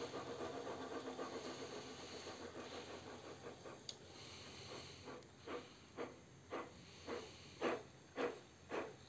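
LGB 20271 G 3/4 "Heidi" model steam locomotive's ESU LokSound 5 XL sound decoder playing steam chuffs through its loudspeaker as the locomotive runs. The beat starts as a quick, soft ripple and slows to distinct chuffs about two a second, which grow louder towards the end.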